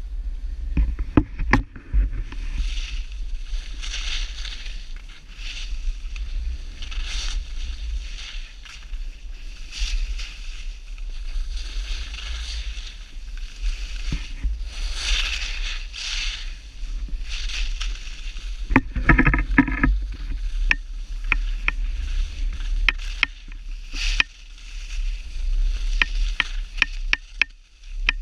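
Skis carving turns on packed snow, a hissing scrape that swells and fades with each turn every second or two, over a steady wind rumble on the microphone. Sharp clicks come near the start and several times near the end, and a short pitched buzz sounds a little past two-thirds through.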